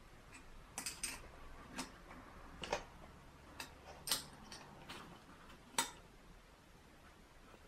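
Faint, irregular clicks and light metallic clinks, about eight of them, from hands working on a Toyota 4A-GE throttle body and the multimeter probe leads on its throttle position sensor.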